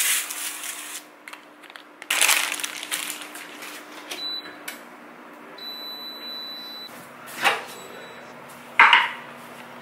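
Kitchen handling noises, a few sharp clatters, with an electronic appliance beeping. There is a short beep about four seconds in, then a longer beep lasting a bit over a second. As the long beep ends, a low steady hum sets in.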